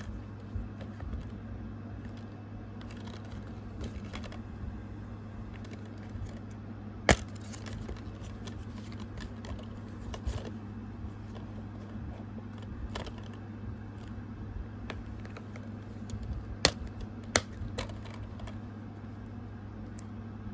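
Light clicks and taps from a plastic DVD case being handled, with one sharp click about seven seconds in and two more near the end, over a steady low hum.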